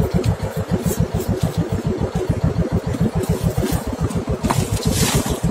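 Fishing boat's inboard engine running steadily, an even rapid pulsing of about nine to ten beats a second, with a brief rustle near the end.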